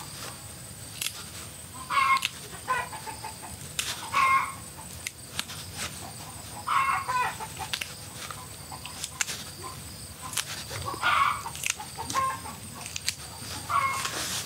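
Chickens clucking, about eight short calls spread over the stretch, with sharp knocks in between.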